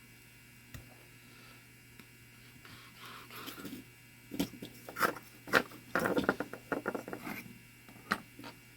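Small metal parts of a mantel clock movement being handled and fitted together: light clicks, taps and scrapes, with a quick run of clicks about six seconds in.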